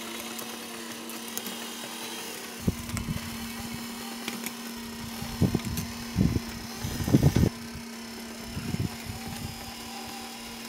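Home-built tracked robot driven by windshield wiper motors, running with a rider aboard: a steady motor hum, joined from about two and a half seconds in by uneven low rumbling bursts, loudest around seven seconds in.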